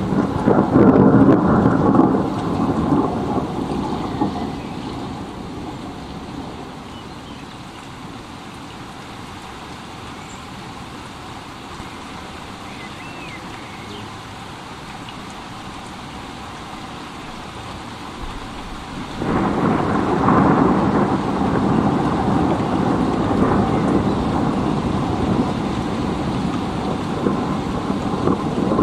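Thunderstorm: rolling thunder over steady rain. A loud rumble of thunder fades over the first few seconds, leaving the hiss of rain. About two-thirds of the way in, a second roll of thunder starts suddenly and keeps rumbling.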